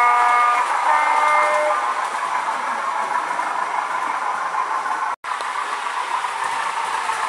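Digital sound-chip recording of a Class 205 'Thumper' diesel-electric multiple unit, played through a model train's small speaker: the horn gives two notes near the start, over the steady running sound of the engine. The sound drops out briefly about five seconds in.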